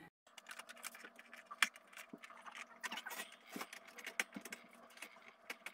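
A plastic pod hideout being handled and set into a pet cage: scattered light clicks, taps and scrapes of plastic against the cage and bedding, over a faint steady hum.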